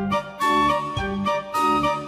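Background music: a tune of held notes over a steady beat of about two beats a second.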